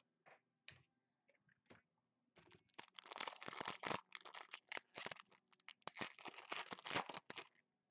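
A few faint clicks, then from about two and a half seconds in, the foil wrapper of a 2015 Panini Prestige football card pack crinkles and tears for about five seconds as it is opened.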